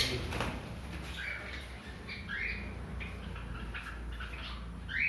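Small caged birds chirping: short, scattered, slightly rising chirps, over a low steady hum.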